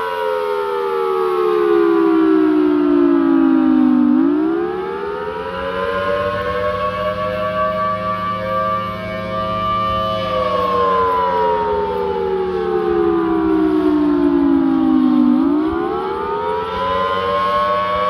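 Federal Signal Thunderbolt 1000T rotating outdoor warning siren sounding its wail on a monthly test. The tone slides slowly down for about four seconds, swoops back up and holds, then slides down again and swoops back up near the end, over a steady low hum.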